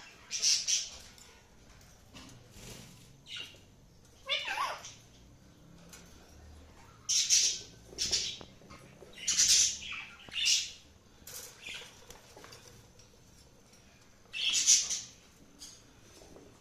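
Cockatiel chirping and squawking: about a dozen short, shrill calls in irregular bursts with pauses between them, one of them sliding down in pitch about four seconds in.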